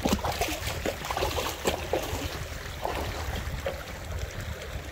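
Creek water splashing and gurgling in irregular bursts, busiest for the first three or four seconds and then calmer, over a steady low rumble.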